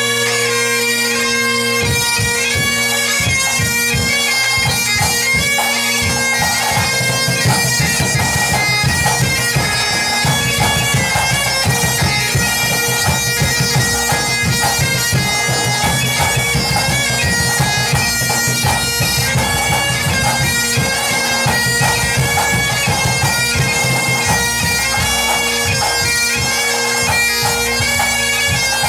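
Breton bagad pipe band playing: bagpipes carry a melody over steady drones, and drums come in about two seconds in and keep a beat underneath.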